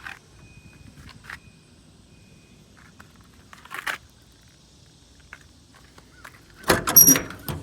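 Metal clunks and a rattle from a truck service-body compartment door and its latch being handled: a few light clicks, then a loud clatter with short sharp squeaks near the end.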